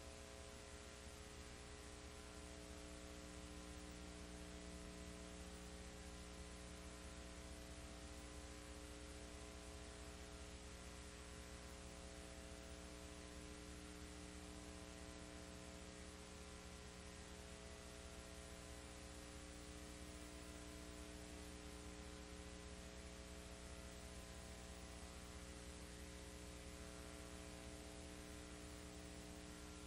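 Near silence: a faint, steady electrical mains hum over hiss, unchanging throughout.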